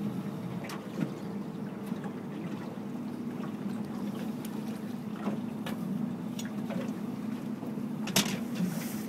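Boat motor running at a steady idle hum, with a few sharp clicks over it, the loudest near the end.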